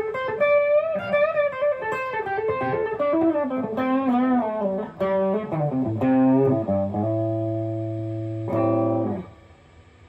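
Baker B1 electric guitar played through an amp: a lead line with bent and vibrato notes that winds downward and settles on a held low note. The note is struck again and then cut off short about a second before the end.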